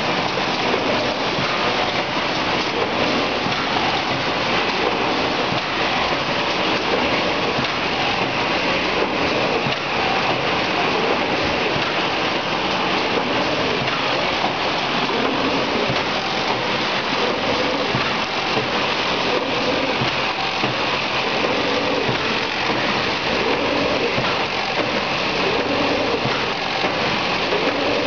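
Industrial cutting machine running with a steady, dense hiss that holds at an even level.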